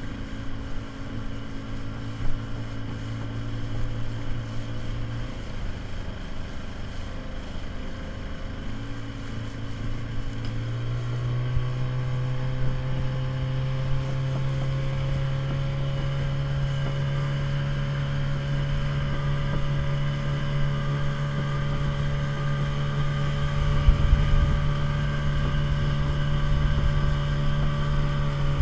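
Small inflatable speedboat's outboard motor running at speed over wind and water noise. Its pitch dips slightly partway through, then rises about ten seconds in and holds higher to the end.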